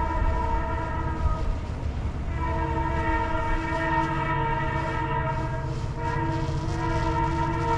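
Diesel locomotive air horn on a CPKC local freight blowing a multi-note chord for grade crossings. One blast ends about two seconds in, a long blast follows, and a third starts about six seconds in, all over the low rumble of the moving train.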